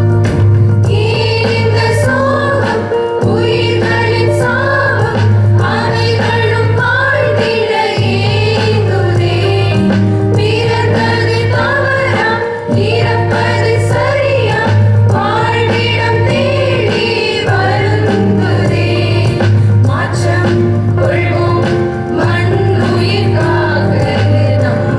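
Voices singing a song, sounding like a choir, over instrumental accompaniment with a steady beat and a strong sustained bass.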